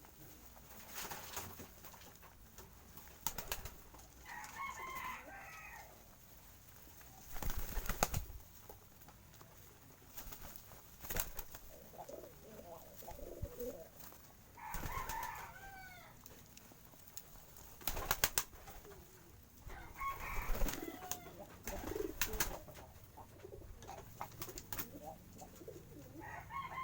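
Pigeons cooing, with other bird calls in short bursts several times and scattered knocks.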